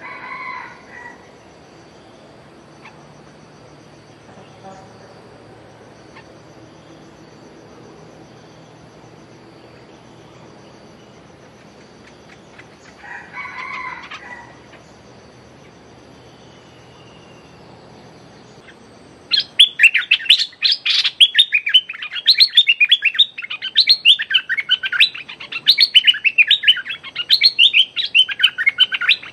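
Bulbul in a decoy cage giving two short, faint calls, then about ten seconds before the end breaking into loud, rapid, chattering calls. A faint steady high insect whine runs underneath.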